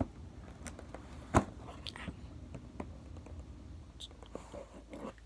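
Scattered clicks, scrapes and crinkles of handling, with one sharp click about a second and a half in and another near the end.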